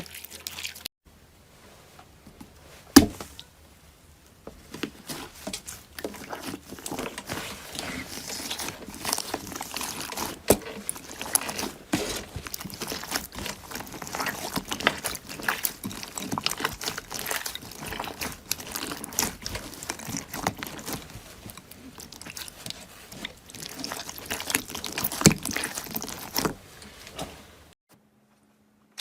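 Slime being worked: a continuous run of wet squelches with many small clicks and pops, and one sharp pop about three seconds in.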